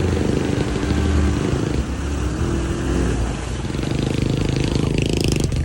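Off-road vehicle engine running, its pitch rising and falling with the throttle.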